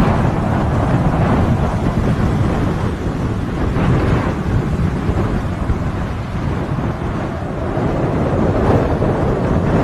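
Strong gusty wind buffeting the microphone: a loud, continuous low rumble that swells and dips.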